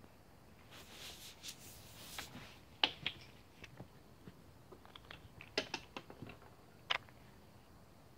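A brief rustling at the start, then a scatter of sharp taps and clicks, the loudest about three seconds in, with more around six and seven seconds.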